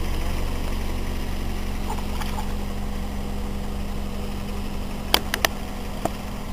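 Steady low motor hum, engine-like and unchanging, with a few sharp clicks about five seconds in.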